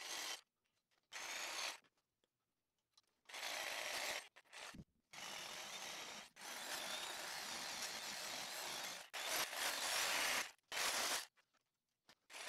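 Corded DeWalt jigsaw cutting a hole through steel flat bar, its blade stroking with a rough, rasping buzz. The sound comes in several separate runs of a second or two each, every one stopping abruptly.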